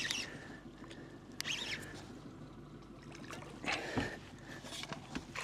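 Water splashing and trickling as a hooked barramundi thrashes at the surface near the boat, with brief splashes about one and a half and four seconds in, over a faint steady hum.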